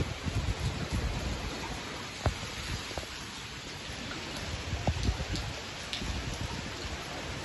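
Heavy rain falling steadily, with gusts of wind rumbling on the microphone and a few sharp ticks of drops landing close by.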